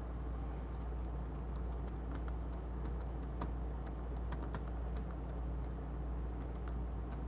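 Typing on a computer keyboard: quick, irregular key clicks starting about a second in, over a steady low hum.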